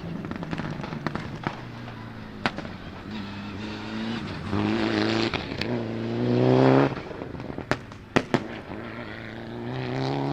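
Mitsubishi Lancer Evo VI rally car's turbocharged four-cylinder engine pulling hard from inside the cabin, its note rising and then cutting off. Sharp bangs from its anti-lag misfiring system come throughout, several in quick succession about eight seconds in.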